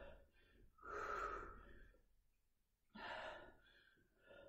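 A woman breathing hard from exertion: two breathy exhalations, about a second in and again about three seconds in, with fainter breaths at the start and near the end.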